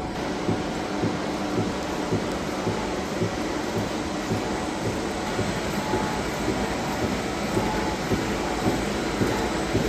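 Fellows gear shapers running, their cutters reciprocating as they cut internal gears and splines: a steady mechanical clatter with an even, repeating low pulse.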